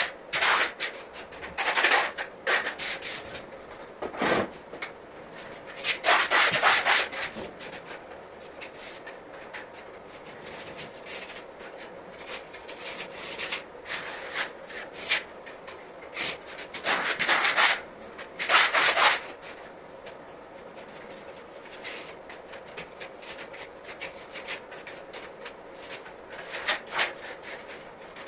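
Steel trowel scraping decorative plaster across a wall in irregular strokes of a second or two, some much louder than others.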